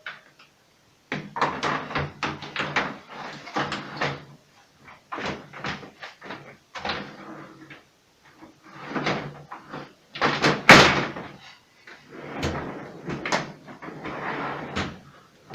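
Plastic refrigerator trays and drawers clattering and knocking as they are slid and pushed into place, with one louder bang about two-thirds of the way in.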